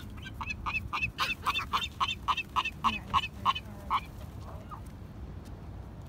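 A gull giving its long call: a run of about a dozen loud repeated notes, about four a second, that stops about four seconds in.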